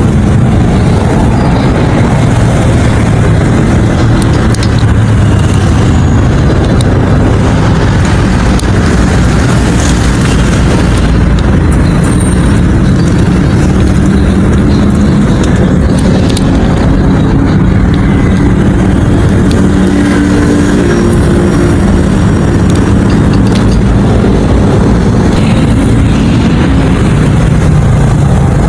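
Steady, loud running noise from a moving road vehicle: engine hum with road and wind noise. The engine pitch shifts up and down in the second half.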